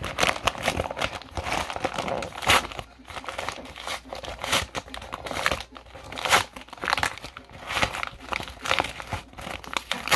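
Packaging being opened by hand: a run of irregular crinkling and crumpling as the wrapping is handled and pulled apart.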